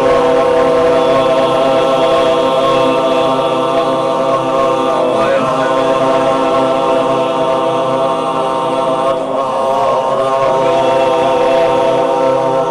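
A Buddhist mantra chanted long and drawn out on one steady, unchanging pitch, with short breaks for breath about five and nine and a half seconds in.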